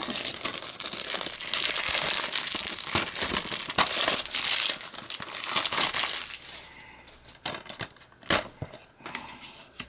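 Clear plastic shrink-wrap being torn and crinkled off a DVD case, a dense crackling for about six seconds. It thins out to a few scattered sharp clicks near the end.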